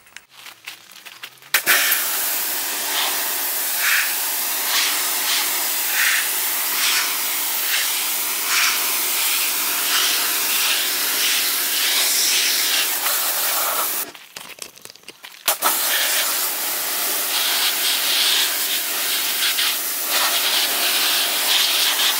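Pressure washer jet spraying water onto the van's body panels, blasting off the snow foam and dirt, a loud steady hiss. It runs in two long sprays, with a break of about a second and a half about two-thirds of the way in.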